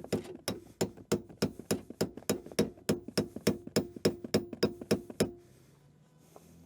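Hammer striking a steel rebar bar over and over, about three blows a second, each blow ringing briefly, driving the bar in under a seized seat. The blows stop a little over five seconds in.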